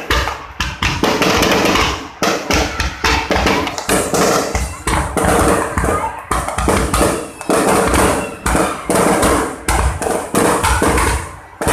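Fireworks display: aerial shells bursting in a rapid, irregular series of bangs, with voices from a crowd of onlookers underneath.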